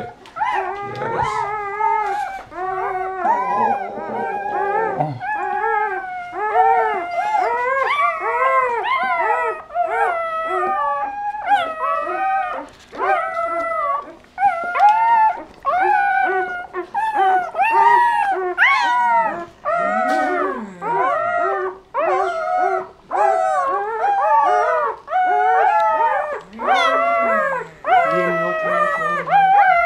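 Newborn Doberman puppies crying: a rapid run of high-pitched squealing cries, each rising and falling in pitch, one after another almost without pause.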